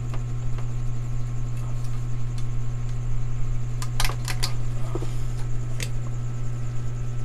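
A steady low hum, with a quick cluster of sharp clicks from the handheld camera being moved about four seconds in and one more click near six seconds.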